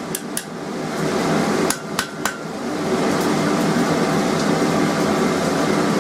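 A hand hammer striking a hot 20 mm by 3 mm steel flat bar on an anvil to bend it, a few sharp, irregularly spaced blows over a steady background noise.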